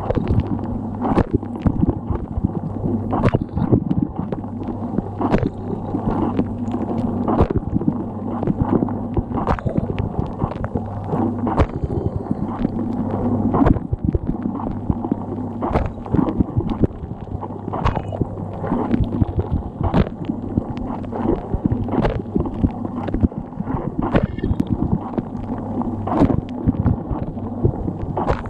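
Dishwasher running its wash cycle, heard from inside the tub: the circulation pump hums steadily while water thrown by the spray arm splashes against the walls and dishes in frequent, irregular slaps.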